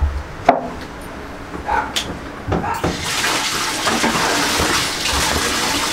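A few light knocks and clicks, then water starts running from a tap about three seconds in, a steady hiss as water is run for a dog's bath.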